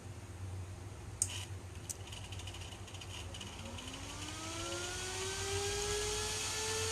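Two clicks as a known-good cooling fan is plugged into the mining machine's fan socket, then the fan spins up with a rising whine that levels off and grows louder, showing that the socket powers the fan. A steady low hum runs underneath.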